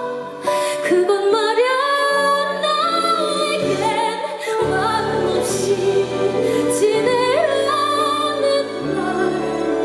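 A woman singing a slow ballad live, with long held notes that glide between pitches, over an accompaniment whose deeper bass notes come in about halfway through.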